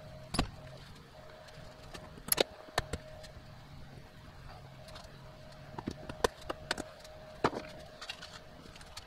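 Scattered light clicks and knocks from a flexible plastic curtain track being handled and pressed up against a camper ceiling, with a faint steady hum underneath.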